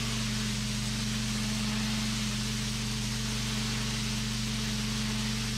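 Gas-engine pressure washer running steadily, its engine hum under the loud, even hiss of the high-pressure spray blasting grime off aggregate concrete.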